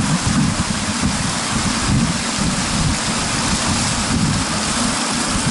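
Wind buffeting the camera's microphone in uneven low gusts over a steady rushing hiss of river water.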